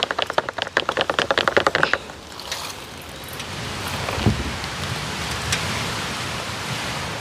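Rapid scraping clicks from hand-mixing a batch in a container, about ten a second, for about two seconds. They give way to a steady rushing hiss that slowly grows louder, with a single dull thump partway through.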